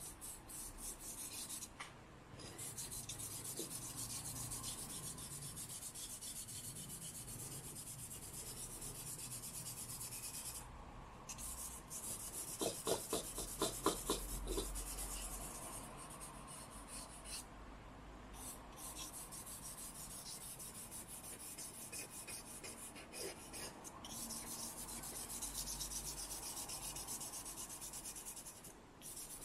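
Charcoal stick scratching across drawing paper in fast back-and-forth hatching strokes, laying down a dark shadow in the background around a drawn sphere. The strokes pause briefly a few times and grow louder for a couple of seconds about halfway through.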